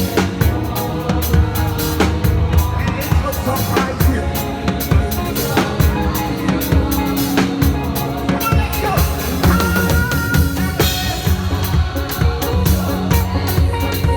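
Live church praise music driven by a drum kit playing a busy, steady beat with bass drum, snare and rimshots, over sustained bass and other instrument tones.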